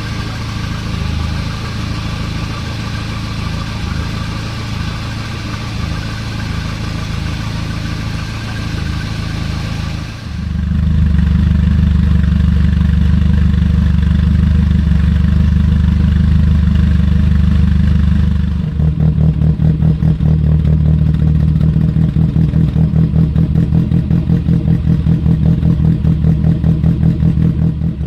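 Volvo 240's B200E four-cylinder engine idling through a single-silencer side exhaust, heard before and after fitting a Cat Cams stage 2 performance camshaft. About ten seconds in the sound changes abruptly to a louder, deeper idle, and about eight seconds later to an uneven, pulsing idle.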